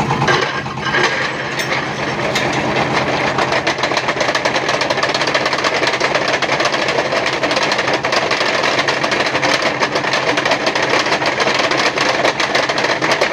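Steel concrete-pole mould turning on the wheels of a pole-spinning machine, making a loud, continuous, rapid metallic rattle and clatter. The noise dips briefly and then builds up within the first second.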